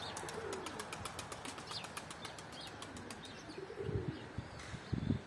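Faint bird sounds: a few short high chirps and soft low calls, over a rapid run of light clicks during the first three seconds. Two low thumps come near the end.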